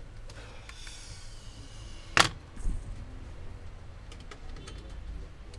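Light clicks and knocks of small objects being handled, with one sharp, loud knock about two seconds in and a duller thump just after, over a low steady hum.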